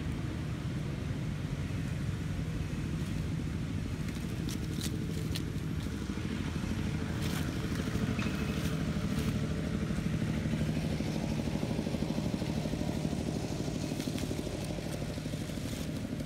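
A motor engine running steadily, a little louder in the middle, with a few faint clicks over it.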